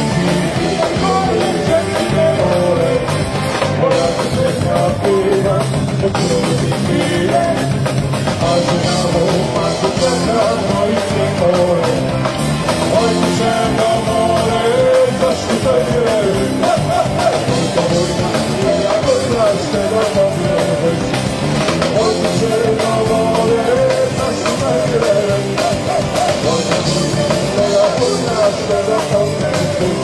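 Rock band playing live, a singing voice carrying the melody over the band.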